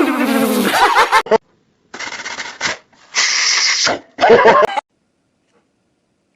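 Mouth-made imitations of sound effects. A hissing sound with a falling pitch ends about a second in, followed by three short, harsh hissing bursts, the last with some voice in it.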